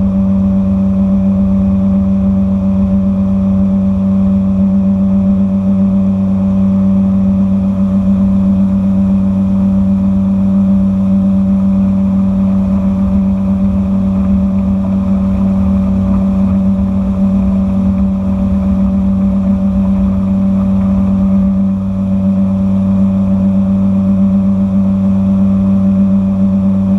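Outboard motor running steadily at speed, the boat up on plane, with a steady pitch and a brief dip in level late on. A low flickering rush of wind and water sits underneath.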